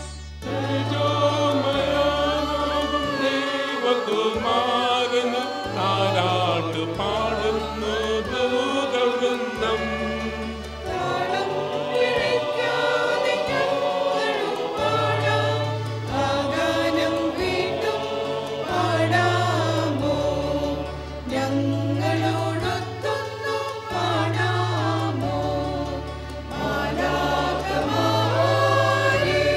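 A mixed choir of women's and men's voices singing a Christmas hymn from song books, over instrumental accompaniment with sustained bass notes that change every second or two.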